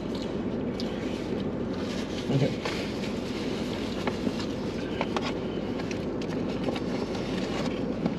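Steady low rumble inside a parked car, with scattered light clicks and rustles from paper takeout boxes and foil food wrappers being handled; a short louder sound about two and a half seconds in.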